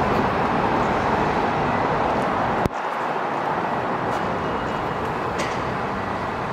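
Steady traffic and garage ambience, an even rushing noise that drops abruptly a little under three seconds in and then carries on slightly quieter, with a faint click near the end.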